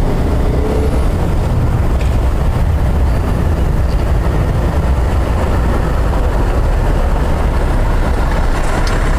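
Steady low rumble of engine noise, loud and even throughout, with no separate events standing out.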